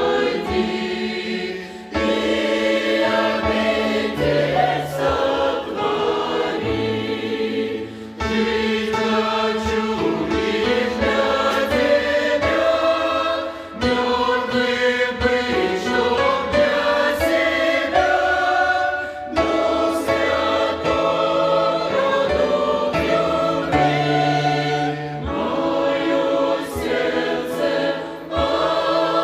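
Church choir singing a Russian gospel song in several voice parts, phrase after phrase with brief breaths between, over a few low held bass notes.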